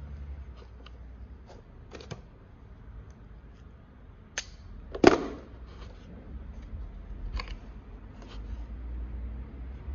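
Hands handling parts inside a foam drone fuselage: scattered small clicks and rustles, a sharp click about halfway through, then a single louder knock with a short ring.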